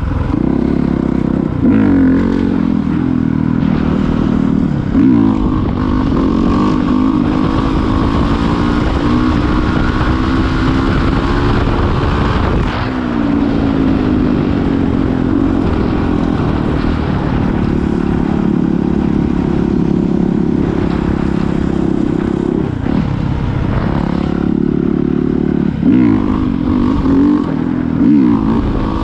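Honda CRF450R's single-cylinder four-stroke engine running hard under a rider, the pitch repeatedly climbing and then dropping back sharply as it shifts up and the throttle is rolled on and off.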